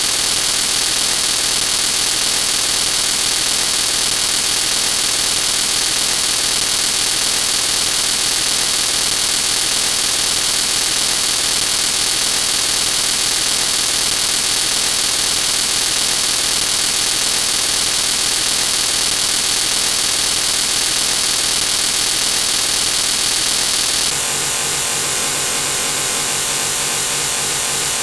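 A loud, steady wall of noise, with its character shifting slightly about 24 seconds in.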